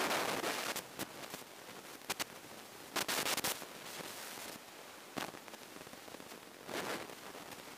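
Rushing airflow noise on the microphone inside a small strut-braced light plane on final approach, broken by irregular crackles and pops: one about a second in, a cluster around three seconds and another near the end. No engine tone stands out.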